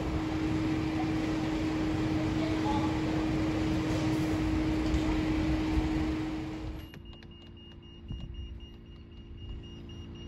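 Steady engine rumble with a constant low hum, cutting off abruptly about seven seconds in. A quieter steady hum with faint high-pitched tones and a few light clicks follows.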